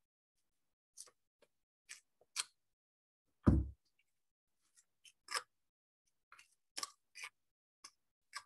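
Printed book-page paper being torn into small pieces by hand: a series of short, separate rips and crinkles. One much louder dull thump about three and a half seconds in.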